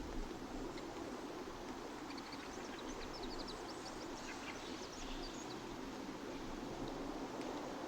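Small birds chirping in quick, short, high notes, bunched in the middle, over a steady low background noise.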